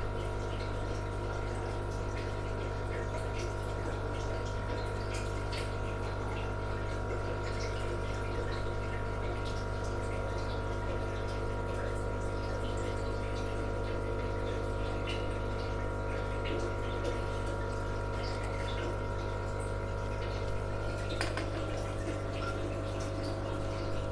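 Aquarium sponge filter bubbling, its air supply giving a steady electrical hum with faint bubble ticks over it.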